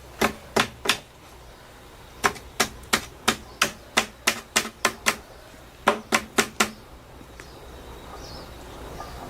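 Repeated sharp blows of a hand tool, in three runs of quick strikes, about three a second, with short pauses between the runs.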